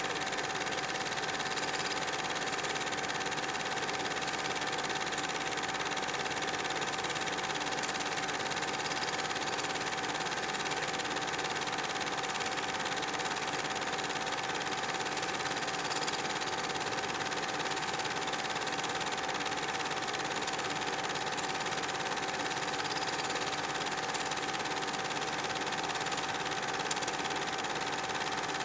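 Steady mechanical whirr of a film projector running, with a constant whine over it.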